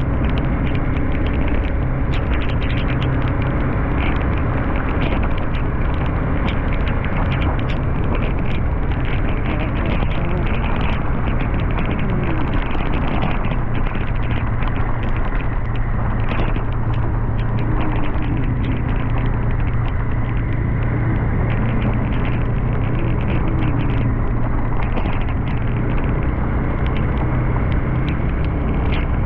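Motorcycle engine running steadily at cruising speed, with a constant rush of road and air noise from the ride.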